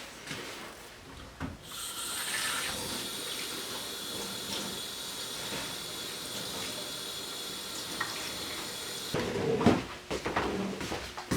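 Water running from a tap into a sink: a steady rush that starts about two seconds in and cuts off suddenly after about seven seconds. Then a few knocks and clatters.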